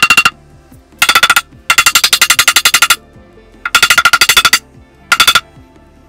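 Rubber hammer beating a steel gooseneck adapter plate up onto a fifth-wheel pin box: five quick runs of rapid sharp blows with short pauses between, as the plate is driven into a tight, snug fit.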